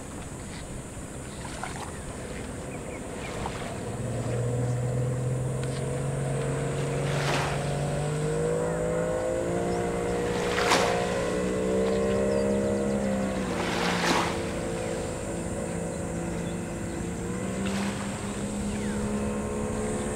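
Boat motor running with a steady hum that grows louder about four seconds in, its pitch shifting up and down a little, over a wash of wind and water noise; three brief sharp knocks come in the middle.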